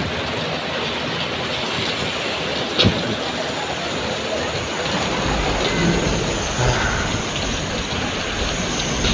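Heavy rain pouring onto the street and pavement, a steady hiss. There is one sharp tap about three seconds in, and a low rumble comes in from about halfway.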